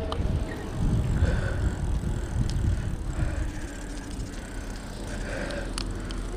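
Wind buffeting the microphone of a handlebar-mounted action camera on a moving electric bike, heaviest in the first three seconds or so and steadier after that.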